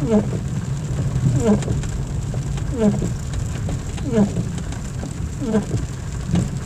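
Car windscreen wipers sweeping across a rain-wet windscreen, five evenly spaced strokes, each a squeak falling in pitch. Underneath runs a steady low rumble of the moving car.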